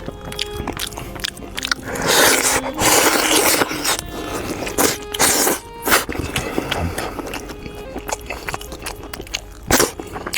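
Close-miked eating: a person biting, chewing and crunching meat and bone, in a string of noisy bursts. The longest burst comes about two seconds in.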